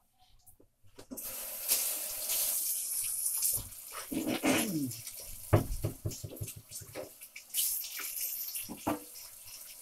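Kitchen tap turned on about a second in, water running into a sink, with scattered knocks and clatter.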